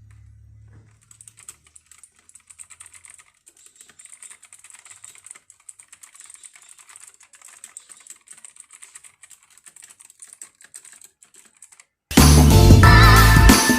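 Typing on a mechanical keyboard with blue clicky switches: a fast, irregular run of light key clicks. Background music cuts in near the end.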